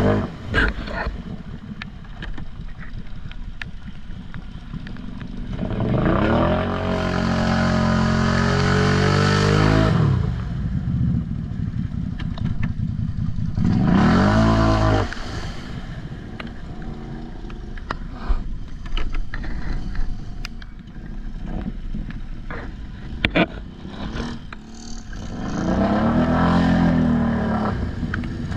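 ATV engine revved hard three times, each rev rising and then falling, with idling and a few knocks in between: a rider trying to drive a stuck quad free.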